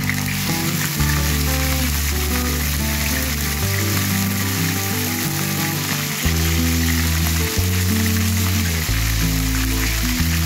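Chicken pieces sizzling and frying in hot oil in a nonstick wok, a steady hiss, over background music with bass notes that change every second or two.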